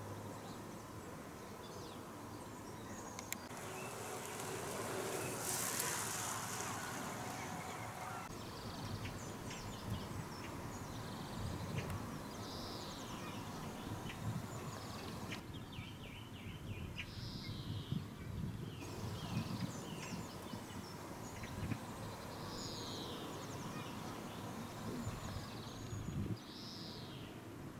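Wild birds calling outdoors, several short high calls that sweep downward, scattered over a steady background of outdoor noise. A louder stretch of noise lasts a few seconds near the start.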